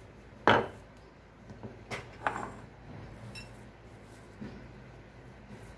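A sharp knock as a wooden rolling pin and a glass bowl are set down and moved on a stone countertop, loudest about half a second in, with two lighter knocks around two seconds in, then faint handling.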